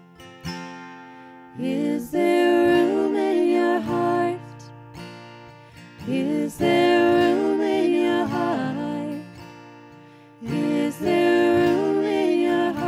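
Music: a slow Christmas song sung by a vocal trio over acoustic guitar, in long sung phrases with short quieter gaps between them.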